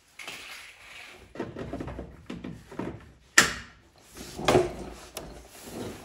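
Handling noises as a trailer wiring cord is worked in behind a pickup truck's rear bumper: rustling and scattered knocks, with one sharp click about three and a half seconds in and another knock about a second later.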